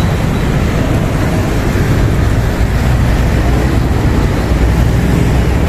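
Steady road traffic noise, a loud low rumble of passing vehicles.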